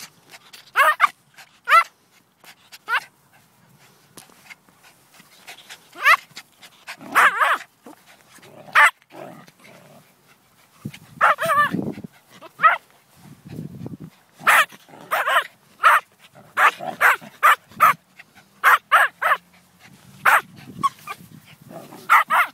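Small terriers barking in short, sharp, high-pitched yaps, many in quick runs of about two a second, with a lower, rougher growl about halfway through.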